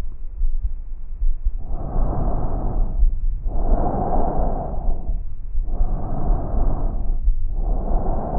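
Breath sounds recorded through a stethoscope: about two full breath cycles, each inhalation and exhalation a smooth rushing noise rising and falling, over a low rumble with thuds.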